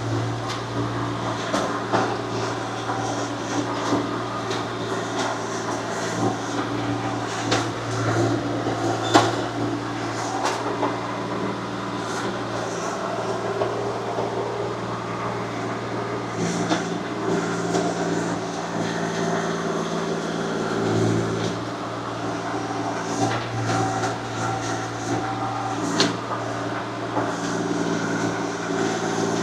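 A 1.8-ton mini excavator's engine running steadily under hydraulic load, its note shifting as the controls are worked. Scattered knocks and clanks from the bucket working the ground.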